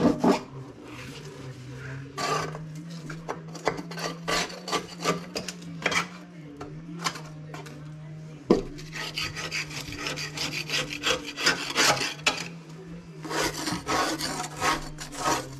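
Dead grass being scraped off the underside of a tractor mower deck: quick, irregular scraping strokes that grow denser about nine seconds in, over a steady low hum.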